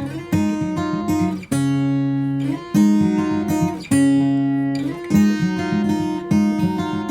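Background music: acoustic guitar playing picked notes and chords.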